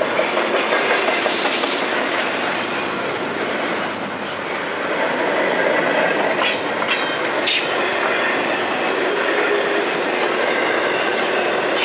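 Double-stack container train's well cars rolling past, a steady noise of steel wheels on rail with clacks and short high wheel squeals now and then.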